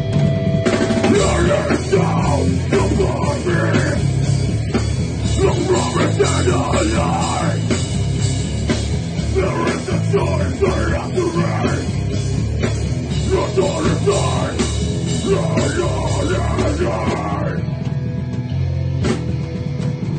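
Loud rock music with a drum kit and guitar, playing continuously; the busy middle part thins out near the end while the bass line carries on.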